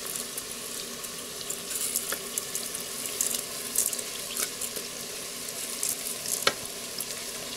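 Chicken sizzling as it fries in the multicooker bowl, a steady hiss with scattered crackles. A single sharp tap comes about six and a half seconds in.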